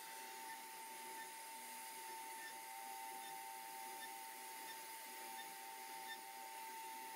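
CNC router spindle running with a steady whine over a faint hiss as its bit carves a relief pattern into a wooden panel.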